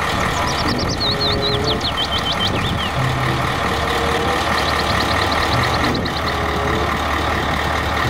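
Diesel engine of a red three-axle tipper truck running steadily with its dump body raised. Two runs of quick high chirps sound over it, one in the first three seconds and one in the middle.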